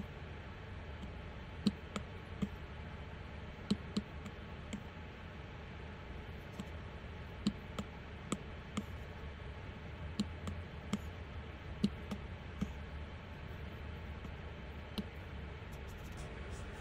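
Apple Pencil tip tapping on an iPad's glass screen: light, sharp clicks at uneven intervals, sometimes two in quick succession, with gaps of a second or more, over a faint steady low hum.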